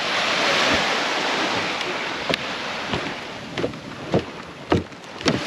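Sea waves washing, with wind on the microphone. In the second half come about five sharp slaps, roughly half a second apart.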